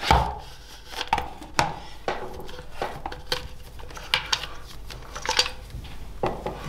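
Hard plastic motorcycle rear fender pieces and their wiring being handled and set down on a wooden workbench: irregular clicks and knocks, the loudest right at the start.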